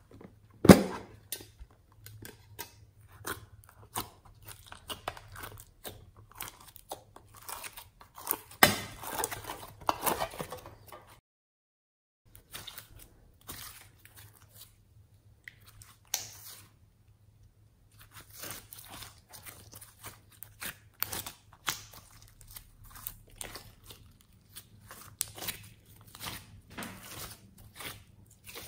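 Hands squeezing, stretching and poking a slime mixed with small beads, giving a run of small clicks, crackles and squishes. A sharp knock comes about a second in, the crackling grows denser and louder for a few seconds in the middle, and it drops out to silence twice for about a second.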